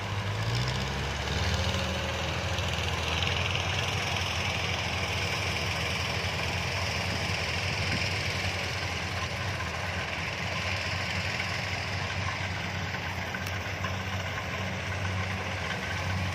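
Kubota DC-70 combine harvester's diesel engine running steadily, a low even drone with a constant hiss over it.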